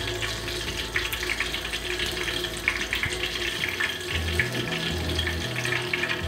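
Breaded chicken fillets deep-frying in hot oil: a steady crackling sizzle with many small pops.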